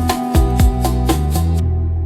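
Arabic-style deep house music: a steady beat with heavy bass and pitched melody notes. The high, even percussion drops out near the end, leading into a quieter breakdown.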